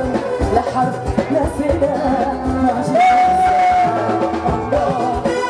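Male and female vocalists singing a Moroccan song live into microphones over a band with percussion. One voice holds a long note about three seconds in.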